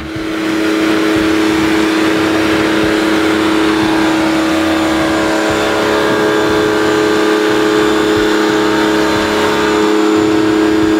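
Konan 1400 W electric pressure washer running with its carbon-brush motor and pump under load: a steady hum with the hiss of the high-pressure water jet from the spray lance.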